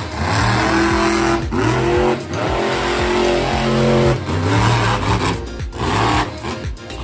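Monster truck engine revving hard while the truck is driven around a dirt arena, its pitch rising and falling several times with brief dips in between.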